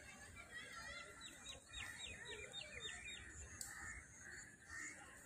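A bird calling faintly in a quick series of short, high, falling notes, about four a second, for roughly two seconds. There is one short click a little after the calls.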